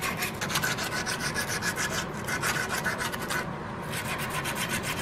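240-grit sandpaper wrapped on a flat file, rubbed back and forth by hand along an iron trigger guard in quick strokes, about five or six a second. There is a short break about three and a half seconds in. This is the last, finest grit of the hand-sanding pass that smooths out file marks before browning.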